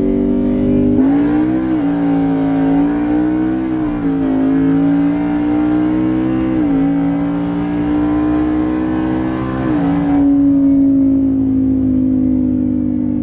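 Ford Coyote 5.0 V8 of an F-150 pulling on the highway, heard from inside the cab. The engine note dips briefly in pitch four times, then about three-quarters of the way through the rushing exhaust sound drops away and the engine settles to a steady cruise.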